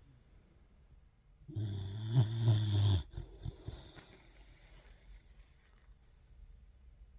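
Snoring: one loud, deep snore about a second and a half long, starting about a second and a half in and cutting off sharply, followed by a few faint short snuffling sounds.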